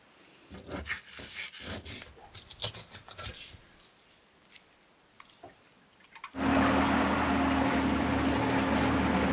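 Wet, irregular rubbing and soft clicks of raw fish flesh being handled and cut, then about six seconds in a boat's engine cuts in loud, running steadily with a low hum.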